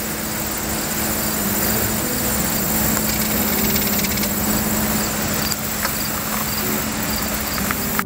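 Jet aircraft climbing out after takeoff: a broad roar with a steady low hum that swells over the first few seconds and then holds. Insects chirp faintly and steadily underneath.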